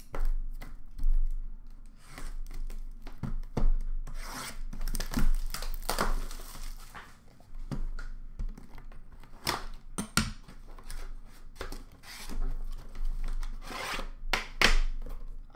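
A sealed box of hockey cards being unwrapped and opened by hand, its metal tin sliding out of the cardboard box, with irregular scraping and knocks.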